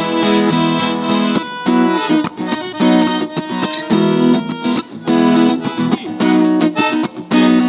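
Instrumental sertanejo music from a live band, led by plucked acoustic guitars playing with a steady rhythm, with no singing.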